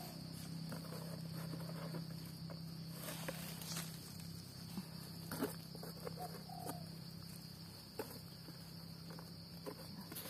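Steady high-pitched drone of forest insects, with a low steady hum beneath and a few faint clicks and rustles scattered through.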